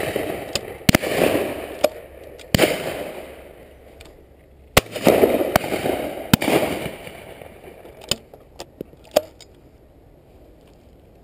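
Shotgun shots fired at pheasants: a run of loud, close bangs spaced a second or two apart, with fainter shots further off near the end. Each bang trails off in a rolling echo.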